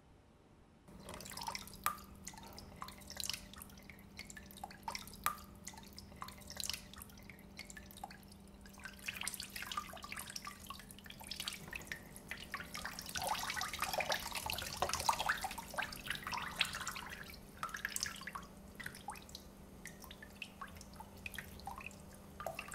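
Milk dripping and trickling down a fridge door onto a hard floor: many irregular drips and small splashes, busiest in the middle, over a steady low hum.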